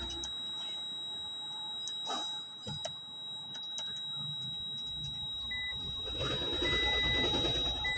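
A 2005 Toyota Prius being switched on at its power button. There are a couple of clicks, then a few short high beeps from the dash from about five and a half seconds in, one of them longer. A low rumble rises at about the same time, over a steady high electronic whine.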